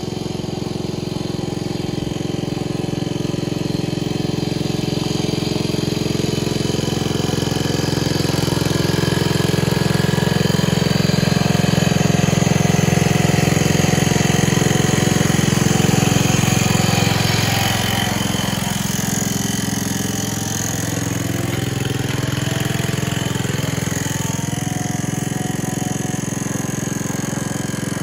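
1970 John Deere 140 H3 garden tractor engine running under way, growing louder for the first half, then dropping in pitch about two-thirds of the way through and settling to a steady, slightly quieter run.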